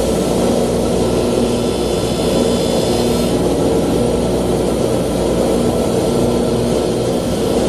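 Jeweler's bench polishing motor running at speed with its polishing wheel, a gold ring held against the wheel as it cuts and polishes the band: a steady motor hum under a grinding hiss, with a faint higher whine from about one and a half to three seconds in.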